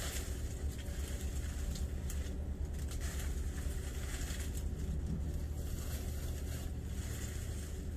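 A steady low outdoor rumble with short, intermittent rustles of lychee branches and leaves as they are pulled and the fruit is picked.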